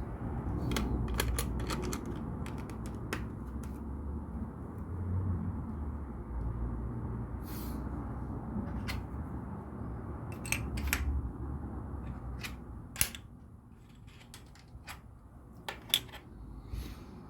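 LEGO pieces being handled and pressed together: scattered sharp plastic clicks over a low rumble, with a few louder clicks near the end.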